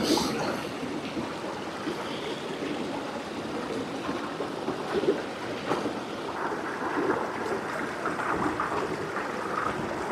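Small mountain stream running over rocks: a steady rush of water, with a few light knocks.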